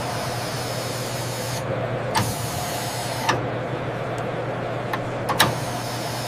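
Small electric motor of a radio-controlled model vehicle running steadily, with four short sharp clicks.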